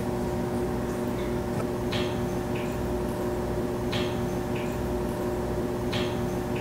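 A steady room hum made of several fixed tones, with a faint, short, soft sound recurring about every two seconds.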